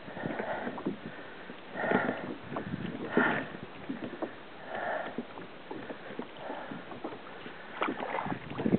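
Water slapping and sloshing against a plastic kayak hull in uneven swells, with scattered knocks and rustling from handling on deck; the loudest knock comes near the end.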